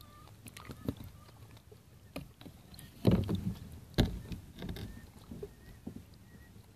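Calm sea water lapping and splashing in small, irregular slaps, the two loudest about three and four seconds in.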